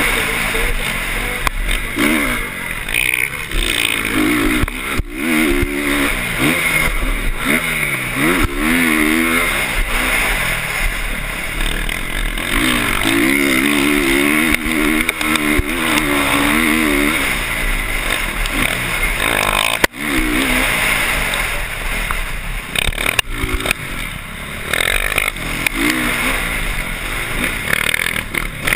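Motocross dirt bike engine heard from a camera mounted on the bike, revving up and falling back again and again as the rider goes through the gears and off the throttle, under a constant rush of wind noise on the microphone.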